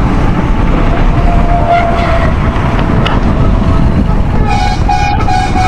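Wind rumbling on the microphone of a moving bicycle in road traffic. A vehicle horn sounds a short note about two seconds in, then a long multi-tone horn blast, broken into pulses, starts near the end.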